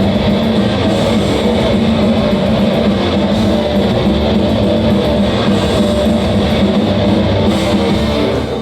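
Heavy metal band playing live, loud distorted electric guitars holding a sustained chord.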